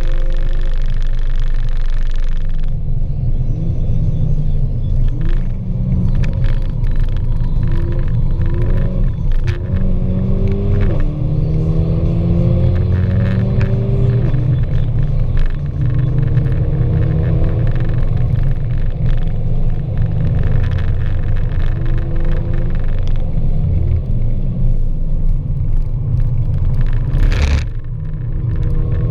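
Mercedes-AMG A45's turbocharged 2.0-litre four-cylinder engine heard from inside the cabin under hard driving, its pitch repeatedly rising as it accelerates and dropping back at each gearchange. A single sharp knock comes near the end.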